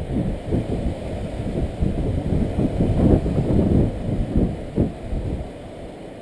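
Wind buffeting the camera's microphone: an uneven low rumble that swells and drops in gusts, easing off near the end.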